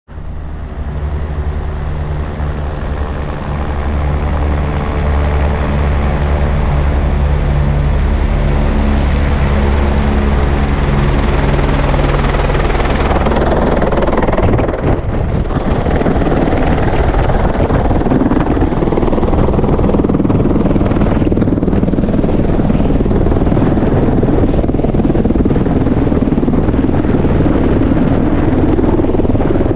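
Helicopter flying in and hovering close by. Its steady rotor and turbine hum builds over the first few seconds. About halfway through the machine comes right up to the microphone, and the sound turns into a loud, rough rushing of rotor wash.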